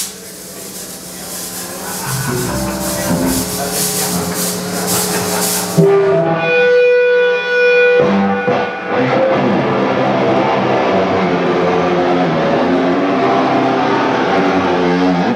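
Live metal band playing, with distorted electric guitars and drums. The first six seconds are a bright, noisy wash; about six seconds in a single chord rings out and is held, and from about eight seconds the full band plays on.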